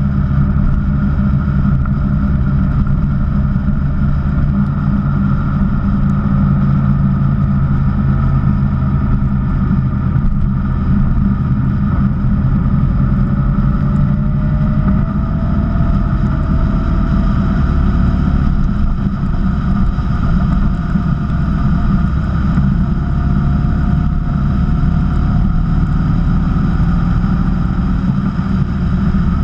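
Honda VFR1200X Crosstourer's V4 engine running steadily under way, heard from the rider's seat together with wind and road noise. Its note rises slowly over the second half.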